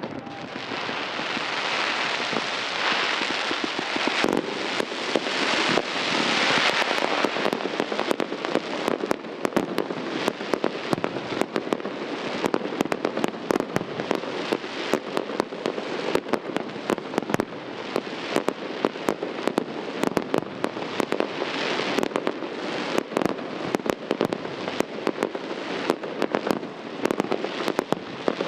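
Aerial fireworks display: a dense, hissing rush of rising shells for the first several seconds, then from about eight seconds in a rapid, continuous stream of sharp pops and crackles as many shells burst together.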